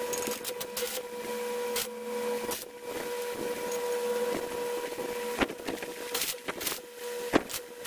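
A steady machine hum with a fixed pitch runs throughout, while small steel parts clamped in a bench vice are handled, giving scattered metallic clicks and knocks. The sharpest knock comes near the end.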